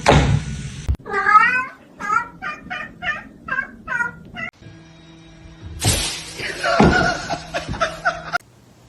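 A domestic cat meowing, a quick run of about six short meows in a row. About six seconds in, a longer, noisier sound follows.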